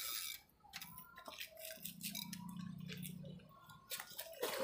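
Fishing reel drag clicking in quick, irregular runs as a hooked barramundi pulls line off the spool.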